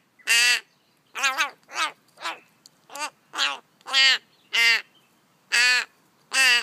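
Fledgling corvid giving a run of about ten short, harsh calls, roughly two a second, with its bill gaping: a young bird begging to be fed.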